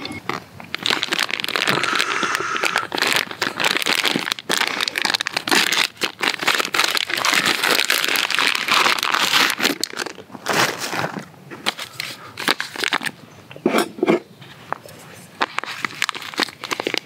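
Thin plastic meat packaging crinkling and crackling as it is handled and opened by hand, in irregular bursts of sharp crackles.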